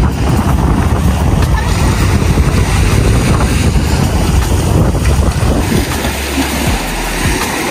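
Wind buffeting the microphone aboard a motorized outrigger boat (bangka) under way, with the steady rush of water and the boat's running beneath it. The rumble eases slightly near the end.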